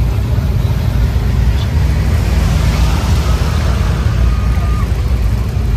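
Vehicle engine running with a steady low rumble, heard close from aboard the vehicle that is towing a stuck mud truck out by strap.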